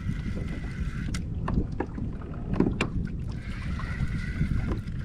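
Fishing reel whirring in two stretches of cranking as a hooked fish is reeled in, with wind buffeting the microphone. A few sharp clicks come in the middle.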